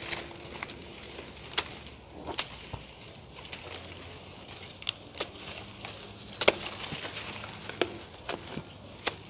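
Hand pruning shears snipping through bird's nest fern frond stems: about seven sharp clicks at irregular intervals, the loudest about two-thirds of the way through.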